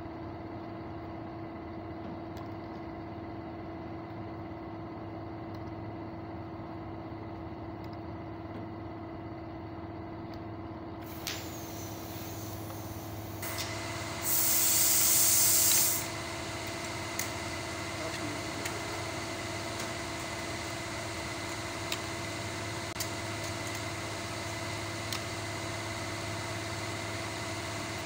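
Steady machine hum from workshop machinery, with a loud hiss of compressed air lasting under two seconds about halfway through and a few faint clicks afterwards.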